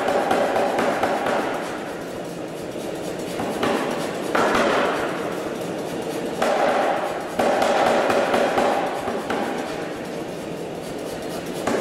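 Anyang 25 kg self-contained air hammer striking a red-hot steel bar in a fast continuous run of blows. The loudness swells and eases several times as the blow force is varied.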